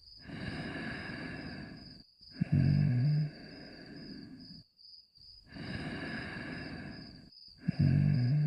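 Cartoon dog's snoring sound effect in two cycles. Each cycle is a long breathy in-breath, then a loud low buzzing snore that trails off into a softer out-breath. A faint high pulsing tone runs steadily underneath.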